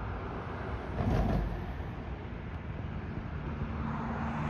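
Steady rumble of distant engine noise outdoors, with a short louder whoosh about a second in and a low steady hum coming in near the end.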